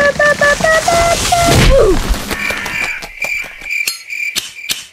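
A short run of about eight quick musical notes, edging upward in pitch. Then, as the picture goes dark, crickets start chirping steadily: the cartoon cue for a silent night.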